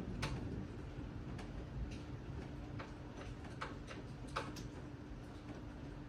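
Irregular sharp ticks and clicks, roughly one or two a second, over a low steady rumble and a faint hum.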